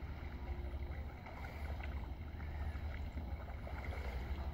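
Steady low wind rumble on the microphone, with faint scattered ticks above it.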